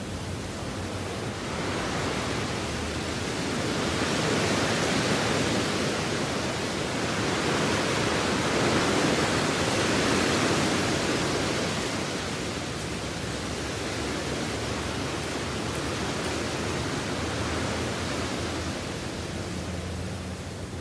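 Rushing noise, like a sound-effect bed, that swells and eases in slow waves, with a faint low hum beneath it.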